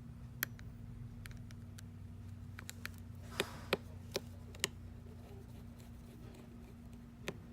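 Scattered sharp clicks and taps of small repair tools handling the iPhone's parts, bunched together in the middle, over a steady low hum.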